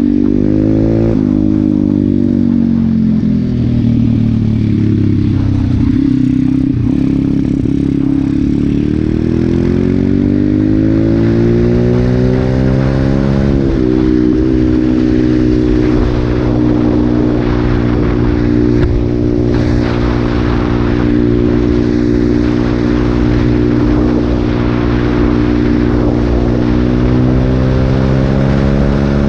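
Regulmoto Seven Medalist 150E pit bike's 150cc single-cylinder four-stroke engine pulling on the road. The note sags, climbs for several seconds, drops sharply at an upshift about 14 seconds in, then holds steady at cruise. Wind rushes over the helmet-mounted camera's microphone throughout.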